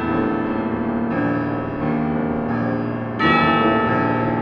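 Tubular bells struck with a pair of mallets, playing slow ringing chords that overlap and sustain, with a louder stroke about three seconds in.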